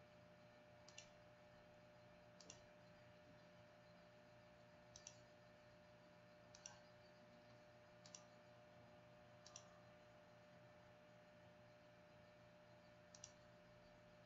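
Computer mouse clicking about seven times at uneven intervals, each click a close pair, over a faint steady electrical hum.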